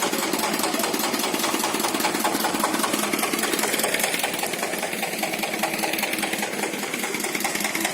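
Small engine running steadily with a fast, even rattle.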